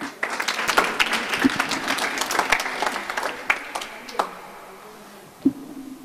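A small group clapping, the applause thinning out and stopping about four seconds in, followed by a single soft knock near the end.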